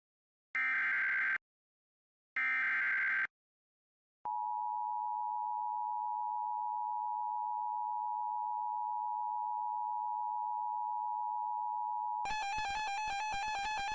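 Emergency Alert System SAME header from a NOAA Weather Radio: two short bursts of buzzing digital data tones, then the steady single-pitch weather radio alert tone held for about eight seconds, announcing a new warning. Electronic keyboard music starts near the end.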